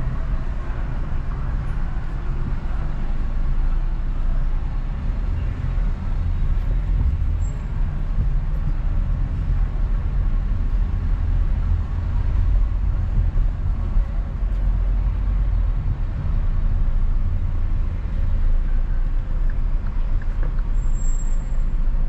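Car driving on a city street: a steady low rumble of engine and tyre noise.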